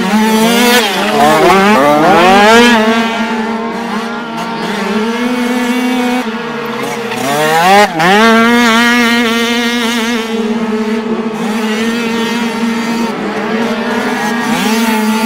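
Several 49cc two-stroke moped-engined dirt bikes racing, revving high. One engine holds a steady high-pitched note while others fall in pitch under braking and climb sharply as they accelerate past, twice.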